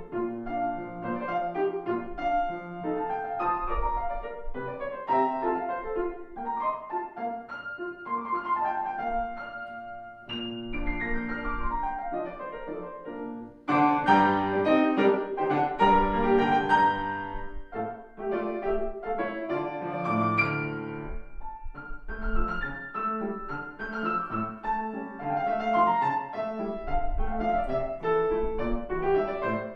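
Solo classical piano played on a Longato grand piano: quick runs of notes, several sweeping downward, then a sudden, much louder and fuller passage about halfway through.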